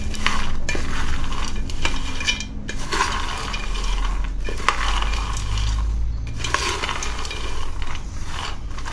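Freshly roasted peanuts rattling as a wooden spatula stirs them around a pan, in repeated sweeps with short pauses between them.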